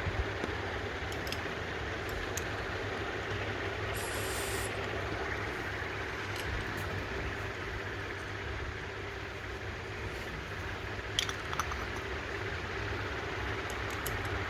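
Steady background hum, with a few light clicks and a short hiss about four seconds in.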